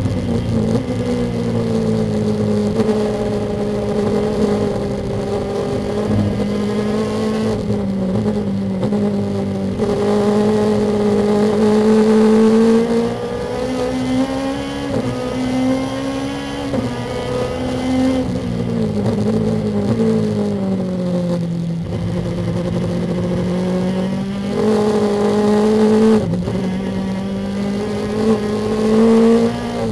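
Lexus IS-R race car's engine heard from inside the cockpit at racing speed, its note rising and falling with throttle and gear changes, with several sudden drops in pitch.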